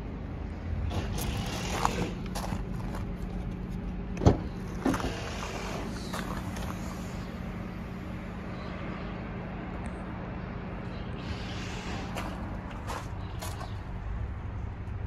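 Rear tailgate of a Nissan Serena minivan being unlatched and opened: a sharp latch click about four seconds in, then a smaller knock half a second later, over a steady low hum and some scattered rustling.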